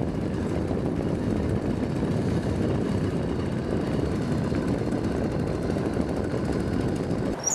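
Bikeberry 66cc two-stroke bicycle engine kit running steadily as the motorized mountain bike is ridden along.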